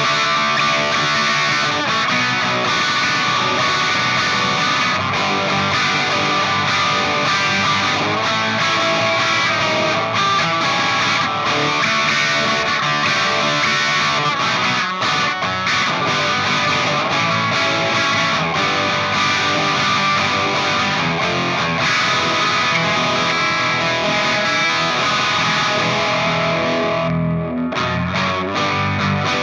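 Electric guitar played through distortion and effects, noodling continuously. Near the end the bright top end drops out for a moment.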